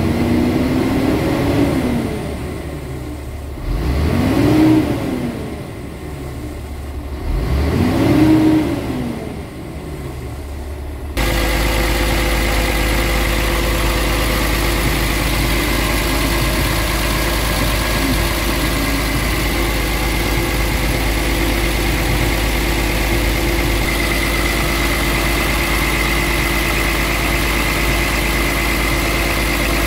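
Scania G tractor unit's diesel engine revved twice, each time rising and falling back. After about eleven seconds it changes to a steady idle heard close up at the open engine, with a steady high whine.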